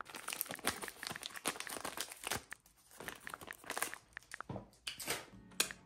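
Candy packaging being handled and crinkled, with dense crackling through the first two and a half seconds, then a few scattered crinkles.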